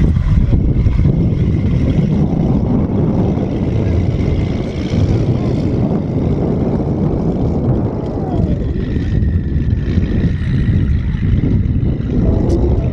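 Car engines running with a loud, steady low rumble.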